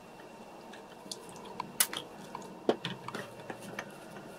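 Small plastic clicks and taps as the parts of a toy car's plastic chassis are handled and fitted, with two sharper clicks a little under two seconds in and near three seconds.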